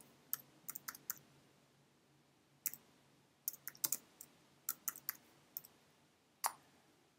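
Faint computer keyboard keystrokes typed in short, uneven runs of clicks, with a pause of about a second and a half after the first few keys and a lone keystroke near the end.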